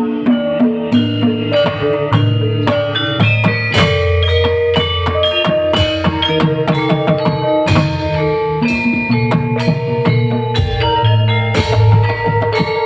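Live band music: drums and percussion beating steadily under sustained melodic notes from pitched instruments.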